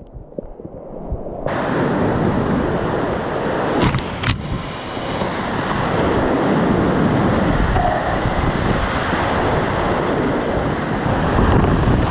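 Rushing whitewater of a river in high spate, heard from a camera on a kayak with splashes washing over the housing. It is muffled for the first second and a half, then opens into a full, steady rush. There are two sharp knocks about four seconds in.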